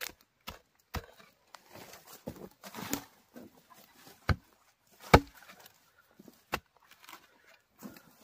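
Narrow-bladed hand hoe chopping into loose forest soil to dig out a winter bamboo shoot: a run of irregular strikes, roughly one a second, the loudest about five seconds in, with soil scraping and crumbling between them.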